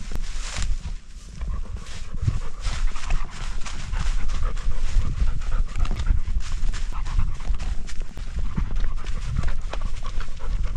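Labrador retriever panting hard, heard close up from a camera strapped to its body, with quick, uneven thumps of its footfalls and movement against the mount.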